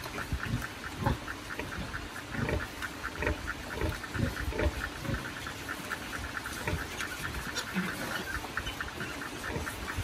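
A nursing sow grunting in short, low grunts about twice a second while her newborn piglets suckle, the rhythmic grunting that goes with milk let-down. A fast, even high chatter runs underneath.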